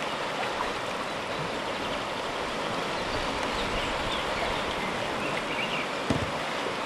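Shallow river rapids rushing steadily over stones and around rocks, with a single knock about six seconds in.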